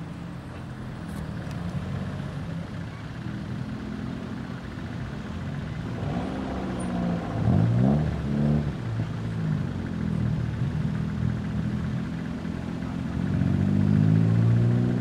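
Car engines passing one after another on the road; about halfway through one engine revs up and drops back sharply, and near the end another car accelerates past loudly.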